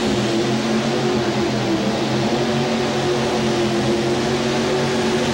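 Mini rod pulling tractor's engine running hard and steady as it drags the weight-transfer sled down the track.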